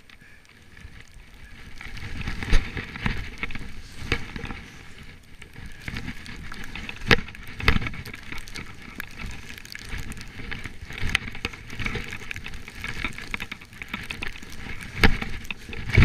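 A skier running down through deep powder snow: a steady rush of air and skis hissing through snow, building about two seconds in. Sharp knocks break in every second or few, the loudest soon after the start and near the end.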